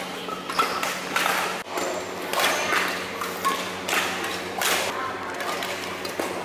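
Badminton being played in a large indoor hall: sharp racket hits on shuttlecocks and thuds of players' footsteps on the court, repeating every second or so, with players' voices in the background.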